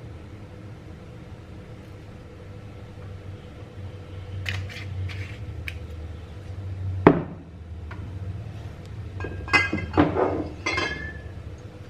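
Dishes and glassware clinking and knocking over a steady low hum: a few light clinks, one sharp knock about seven seconds in, then a cluster of ringing clinks near the end.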